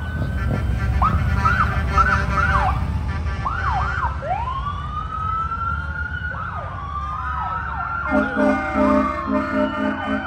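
Several emergency vehicle sirens sounding at once over engine rumble, short rapid whooping chirps overlapping with long rising and falling wails. From about eight seconds in, a low horn sounds in a run of short blasts.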